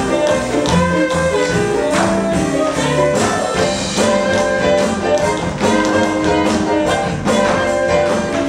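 Pit orchestra playing a brisk, brassy musical-theatre number, with sharp tap-shoe strikes over it.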